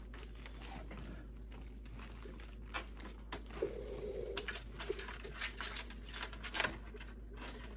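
Handling noise from computer parts and the case being worked on: scattered light clicks and taps with some rustling.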